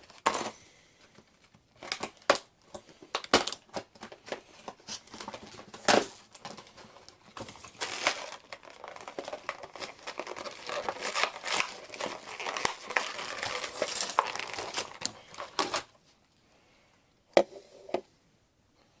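Plastic packaging crinkling and tearing as it is pulled open by hand, with scattered knocks from handling. The rustling stops about three-quarters of the way through, then come a couple of sharp taps near the end.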